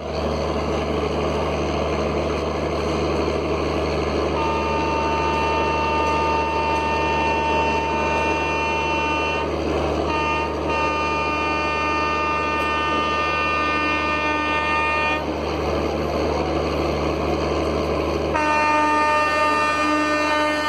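WAP-5 electric locomotive's multi-tone horn sounding in long blasts over a steady rumble: one of about five seconds starting about four seconds in, two short toots, another of about four and a half seconds, and a third starting near the end.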